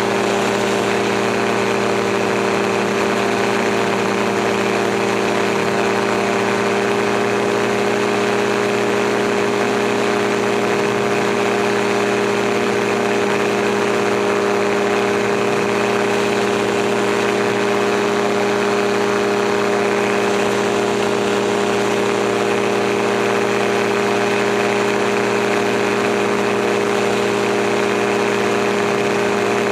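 Gyroplane's engine and propeller running at a steady, even drone in level flight, heard on board the aircraft.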